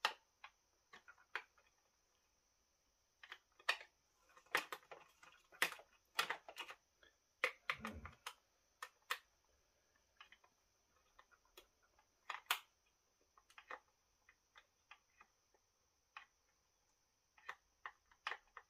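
Irregular light plastic clicks and taps of hands working at the housing of an ECHO 4310 SX chainsaw, prying its top cover loose, with a duller knock about eight seconds in.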